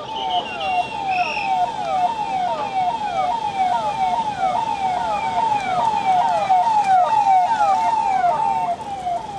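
Sirens on police convoy vehicles sounding a quick, repeating falling sweep, a few sweeps a second, with more than one siren overlapping out of step.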